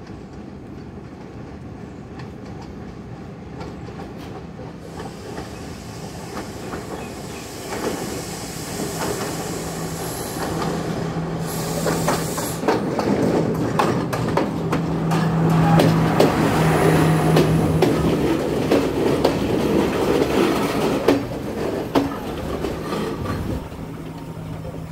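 A diesel multiple-unit train comes in on the adjacent track and passes close by, its engine running and its wheels clacking over the rail joints. It grows louder from about eight seconds in and is loudest in the second half, as the coaches go past. A steady low engine hum runs underneath.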